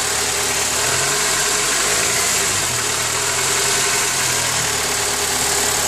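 Honda K20A6 2.0-litre inline-four engine running steadily at idle, carrying an odd noise that the owner says gets quieter once the engine is warm.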